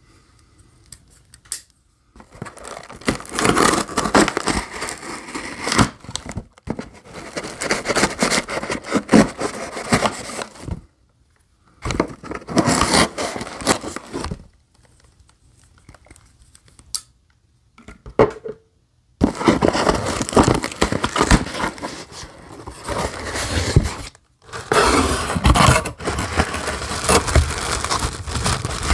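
A cardboard shipping box being opened by hand: a box cutter slicing the packing tape, and the cardboard flaps scraping and tearing, in irregular bursts with short pauses. Near the end, plastic air-pillow packing crinkles as it is lifted out and handled.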